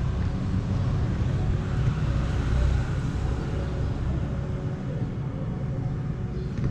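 Yamaha Sniper 150's single-cylinder engine running through an aftermarket UMA power-pipe exhaust, a steady low exhaust note that swells briefly about two seconds in.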